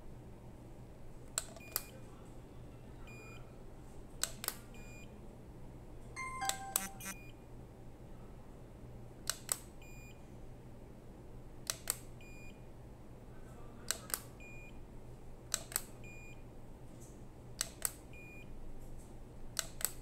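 Handheld non-contact infrared thermometer taking repeated readings: a sharp plastic click from the trigger, then a short high beep as each reading is taken, about every two seconds. Around six seconds in there is a quick run of clicks with a few beeps at different pitches.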